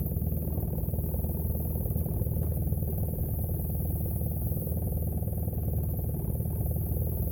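Boat motor idling steadily, a constant low hum.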